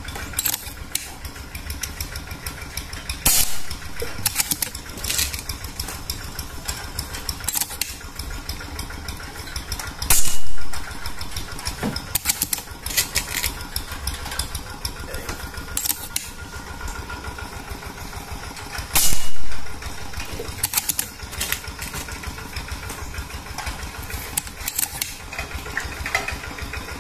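Suppressed PCP air rifle (Predator Immortal) being fired three times, with a sudden loud shot about every seven to nine seconds. Between the shots come short metallic clicks of the action being worked and reloaded, over a steady low hum.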